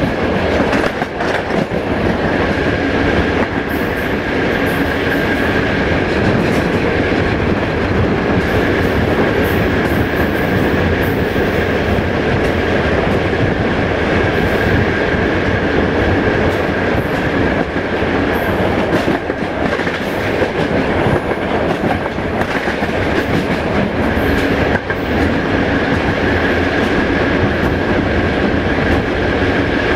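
Passenger train coaches running at speed, heard through an open window: a steady rumble and rush of steel wheels on the rails, with a few clacks from rail joints and a steady high whine.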